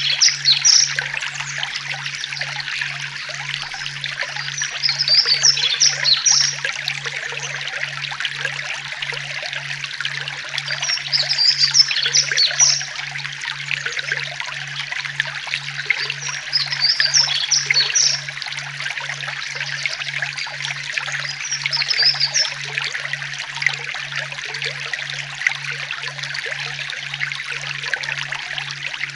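Forest ambience: a steady trickle of running water, with a cluster of high bird chirps recurring about every five to six seconds and a low hum that pulses about one and a half times a second.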